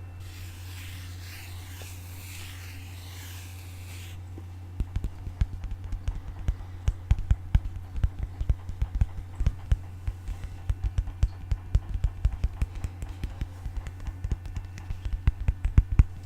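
Fast, irregular tapping on an object close to the microphone, starting about five seconds in, after a few seconds of soft hissing scratchy noise. A low steady hum runs underneath.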